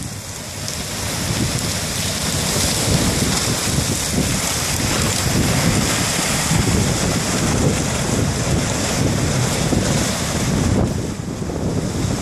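River ice going out: broken ice floes grinding and crunching against each other and up the bank in a steady crackling rush, mixed with wind on the microphone.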